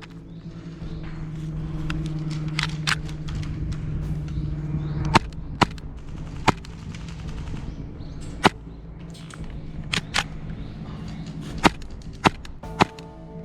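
Airsoft gunfire during a game: about a dozen sharp, separate pops and cracks at irregular intervals, some close together in pairs.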